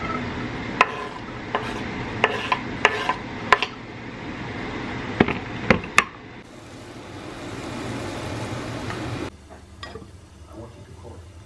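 Chopped food sizzling in a frying pan on a gas burner, with sharp clacks of a wooden spatula against the pan and of a knife on a wooden cutting board. The sizzle cuts off suddenly about nine seconds in, leaving only a few soft knocks.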